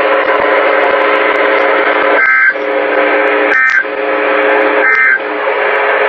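Emergency Alert System end-of-message data bursts received over a radio: three short two-tone warbles about a second apart. They play over a steady hum and hiss from the receiver.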